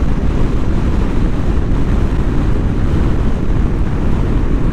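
Wind rushing over the camera microphone of a moving motorcycle at road speed, a steady, heavy rumble mixed with the drone of the bike and its tyres.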